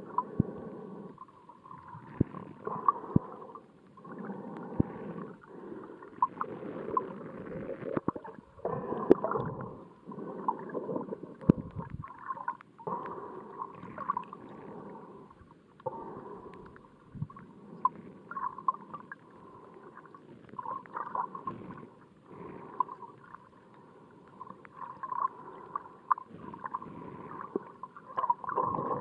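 Muffled underwater water noise picked up by a camera in a waterproof housing just below the surface: sloshing and gurgling that surges unevenly, with scattered sharp clicks.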